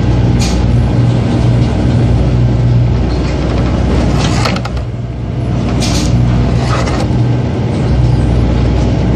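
A boat's engine running with a steady low drone while waves rush and splash against the hull in rough seas, with several short bursts of spray about half a second, four and a half, six and seven seconds in.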